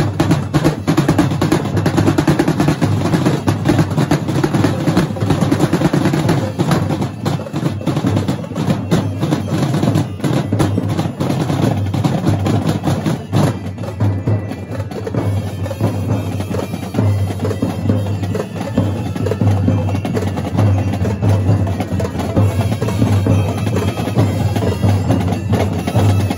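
A large drumline of marching snare drums playing together: fast, dense stick strokes and drum rolls over a steady low drum note.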